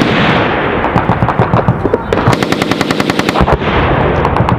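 Automatic gunfire: long bursts of rapid shots, about ten a second, going almost without pause.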